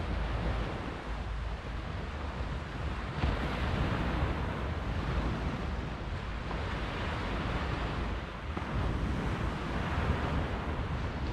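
Sea surf washing up the beach, surging and easing, with low wind rumble on the microphone.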